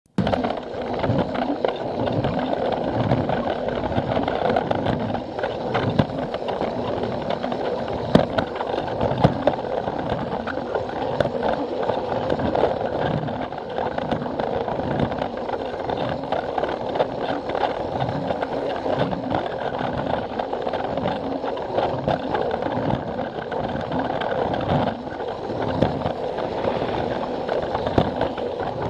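Plarail battery-powered toy train running on plastic track, its small motor and gears whirring steadily while the wheels rattle and click over the track joints.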